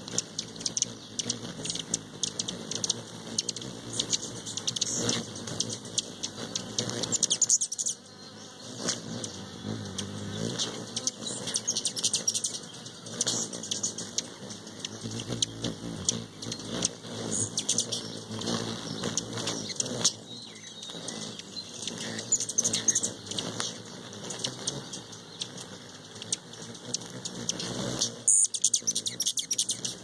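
Several hummingbirds hovering at a nectar feeder, with the buzzing hum of their wings and many quick high-pitched ticks.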